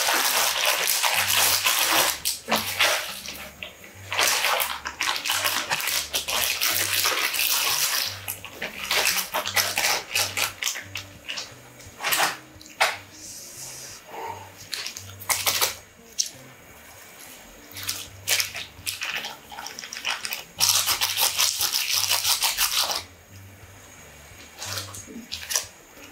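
Plastic instant-ramen packets crinkling and tearing open in long rustling bursts, with shorter crackles as noodle blocks go into the pot of broth and small seasoning sachets are torn open near the end.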